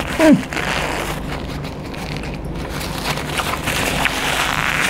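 A man blowing his nose into a tissue in a long, noisy blow, after a short vocal sound falling in pitch at the start.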